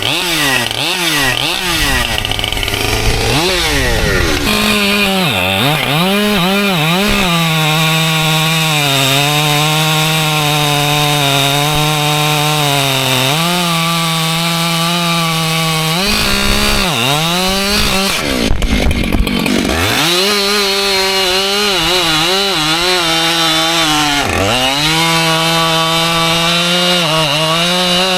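Husqvarna two-stroke chainsaw cutting white oak logs. The engine runs at high revs with a steady pitch, which sags and recovers several times: about five seconds in, for a few seconds around the middle, and again near the end.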